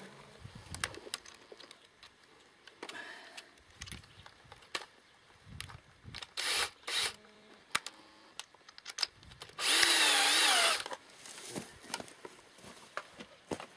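Cordless screwdriver running in two short bursts about six and seven seconds in, then a longer, louder run of about a second near ten seconds, its motor pitch wobbling up and down. Scattered knocks and clicks of handling come between.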